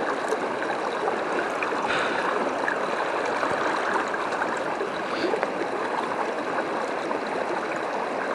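Steady rush of a fast-flowing trout river breaking over rocks.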